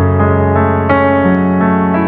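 Background piano music: slow, sustained keyboard notes with the melody changing about every half second over a held low bass note.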